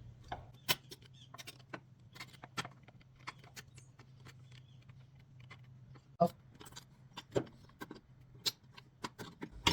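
Irregular small metal clicks and clinks of hand tools and hardware as the nut lock is worked off a PullRite Superglide hitch, a few louder knocks among them, over a steady low hum.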